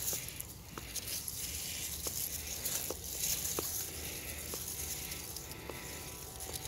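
Basil leaves and stems rustling and snapping as they are grabbed and picked by hand, over a steady faint high hiss.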